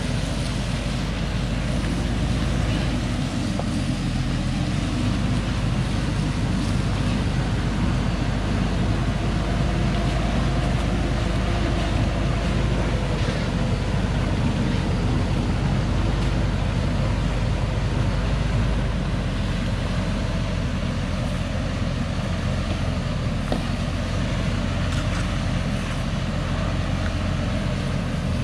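Diesel engine of a Thaco Forland FC950 4WD truck running steadily under load, hauling a full stack of acacia logs over a muddy forest track, as a low continuous rumble.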